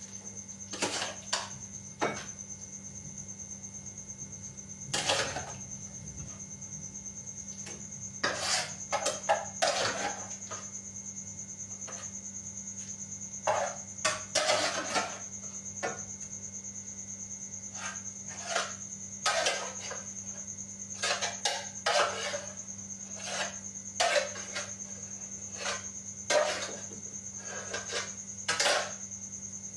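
Metal utensils clinking and knocking against a pot or bowl while instant noodles are cooked and dished up, in irregular clusters of sharp clinks. A steady high-pitched whine and a low hum run underneath.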